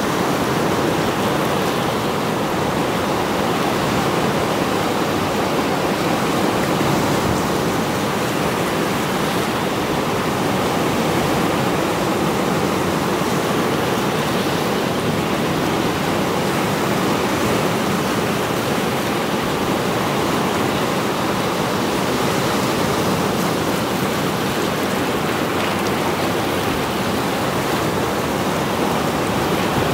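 Mediterranean surf breaking and washing over a rocky shore: a steady, unbroken rushing of waves with no distinct lulls.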